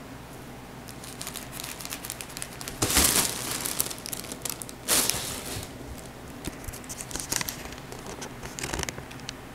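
Vinyl cat play tunnel rustling and crinkling as it is moved about with the kitten inside, a steady fine crackle with two louder crinkling surges about three and five seconds in.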